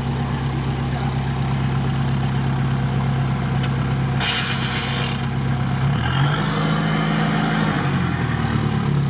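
Off-road vehicle's engine idling, then revved up for about two seconds near the end as the stuck vehicle tries to drive out of the swamp. A short hiss comes about four seconds in. The front axle isn't pulling, which the driver puts down to something wrong with the axle.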